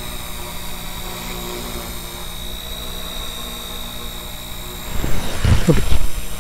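Small electric XK K100 radio-controlled helicopter hovering: its motor and rotor make a steady high whine. About five seconds in, a louder sound lasting about a second rises over it.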